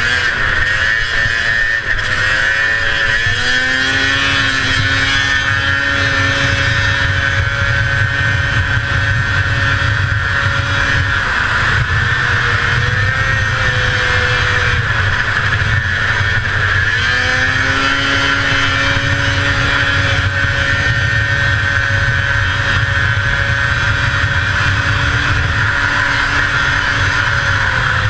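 1981 Arctic Cat El Tigre 6000's 500cc two-stroke engine running flat out at racing speed, loud and steady. Twice, a couple of seconds in and again about halfway through, the engine note dips and then climbs back up.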